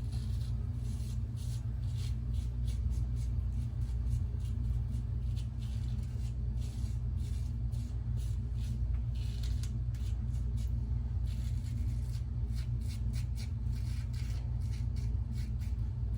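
A lather catcher safety razor scraping through lathered stubble on the neck in runs of short, quick strokes, each a brief crackly rasp, over a steady low hum.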